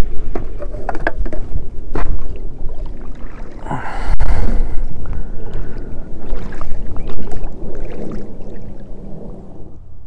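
Oars of an inflatable pontoon boat being rowed: blades splashing in the water, with knocks from the oars and frame at irregular intervals and a louder spell about four seconds in, over a steady low rumble.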